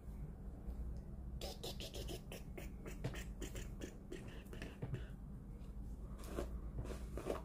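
Comb drawn through hair close to the microphone: a run of quick, irregular strokes beginning about a second and a half in, over a steady low hum.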